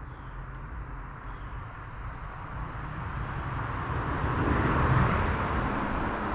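A car passing on a road, its rushing noise swelling to loudest about five seconds in and then fading, over a steady high insect drone.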